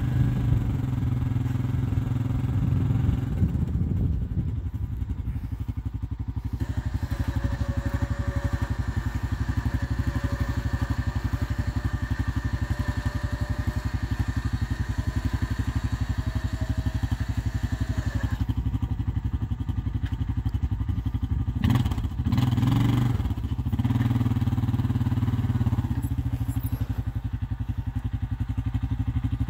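ATV engine idling steadily. From about 7 to 18 seconds a steady whine from the bale unroller's lift motor rises over it as the arms raise a round hay bale. A brief clatter and swell of engine sound comes about 22 seconds in.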